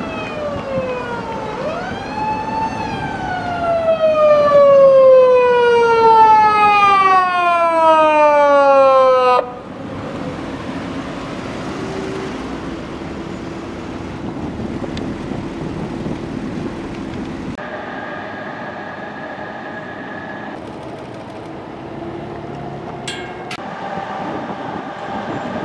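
Police siren of an unmarked Nissan Skyline V36 patrol car on an emergency run, wailing with a quick rise and then a long, slowly falling tone, loudest just before it cuts off suddenly about nine seconds in. Steady road traffic and engine noise follows.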